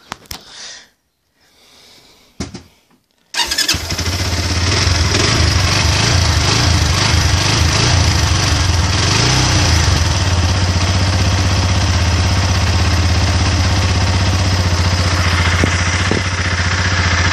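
SYM Wolf SB250Ni's 250 cc fuel-injected single-cylinder engine, started from cold after a few quiet seconds with a click or two: it catches at once about three and a half seconds in. It then runs at a fast idle that eases down over the following seconds.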